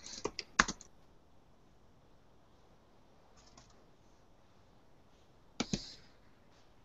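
Clicks and key taps on a computer: a quick run of several in the first second, then a short pair near the end, with faint room tone between.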